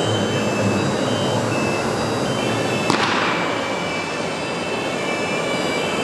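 Busy exhibition-hall din, a dense steady mix of machine noise around a model tractor display, with a sudden short hiss about three seconds in.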